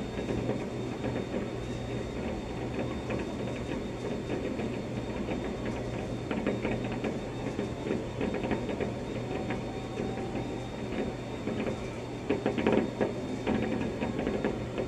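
Fireworks popping and crackling, muffled through an office window, with a cluster of louder pops near the end, over a steady low hum.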